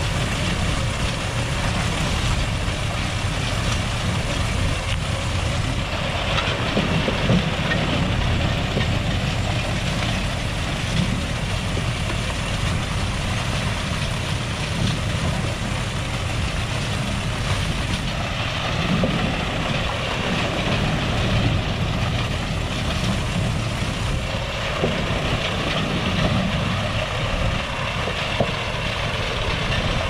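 Engine-driven corn harvest machinery running steadily: a continuous loud engine and machine din with no break.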